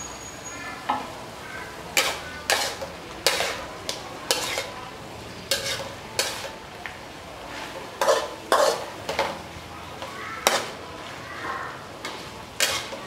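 Spatula scraping and tossing pickled bamboo shoots and beef in a steel wok: a string of sharp scrapes and clacks at an uneven pace, about one a second, over a steady sizzle of frying.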